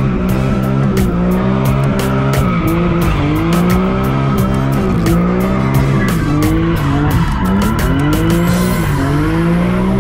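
BMW E46 M3's S54 straight-six held high in the revs, dipping and climbing again several times, with the tyres squealing as the car slides.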